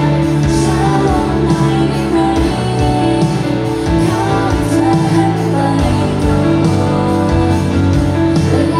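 Live performance of a girl-group pop song with female singing over a backing track, played loud through a concert sound system.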